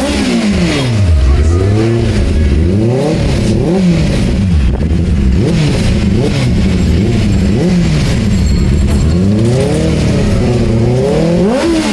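Benelli 600i's 600 cc inline-four engine on its stock exhaust, revved up and down repeatedly. It gives several quick throttle blips, each falling back to a low idle, then a longer rev climbs near the end.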